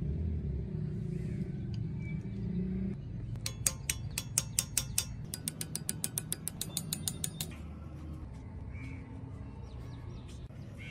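Rapid light metallic taps, several a second for about four seconds starting around three seconds in: a small hammer striking a setting punch to close a brass bezel around a faceted gemstone. Background music runs underneath.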